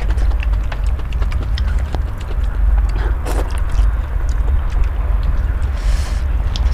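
Close-up eating sounds of spicy instant noodles: chewing and mouth clicks, with a noodle slurp a few seconds in and another near the end, over a steady low hum.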